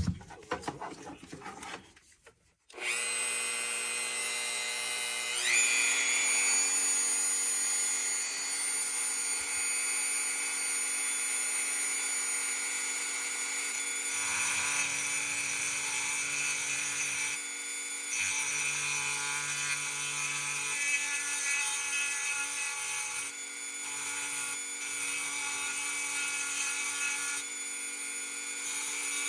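A handheld rotary tool starts up a few seconds in after some light handling sounds, its whine rising to a steady high pitch. It then grinds down the head of a pocket knife's pivot pin, the tone shifting slightly as the bit bears on the pin.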